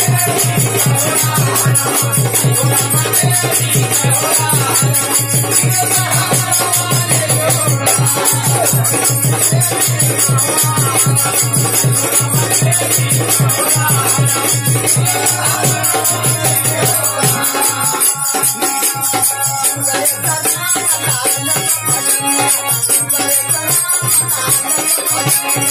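Bhojpuri devi geet music: a harmonium plays the melody over a steady dholak rhythm, with jingling hand percussion keeping a dense, even beat.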